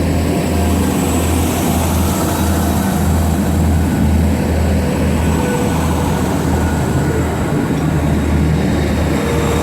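Class 175 diesel multiple unit's underfloor diesel engines running at the platform, a steady low drone with a faint high whine over it.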